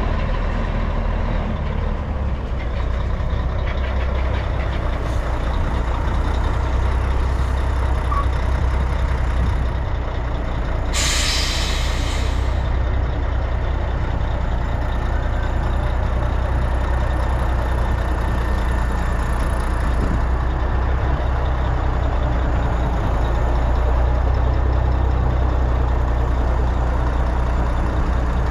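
Mack R-series truck's Maxidyne V8 diesel engine running steadily as the truck pulls up and stands, with a sudden hiss of air from the air brakes about eleven seconds in, lasting about two seconds.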